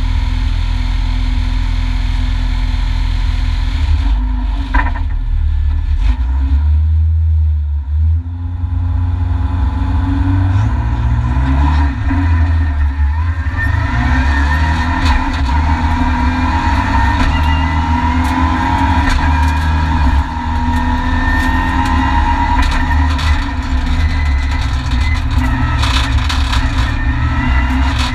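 Renault Mégane N4 rally car's turbocharged four-cylinder engine heard from inside the cabin: running steadily while the car stands still, then pulling away about ten seconds in and revving up through the gears.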